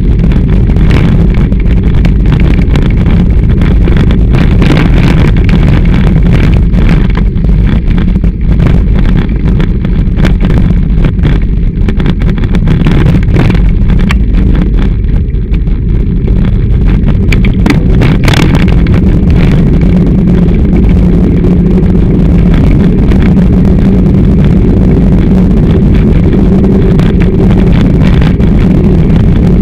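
Mountain bike riding along a trail, heard through a camera clamped to the handlebars: a constant loud rumble with many small knocks and rattles as the mount shakes over the ground, and wind buffeting the microphone. One sharp knock stands out about eighteen seconds in.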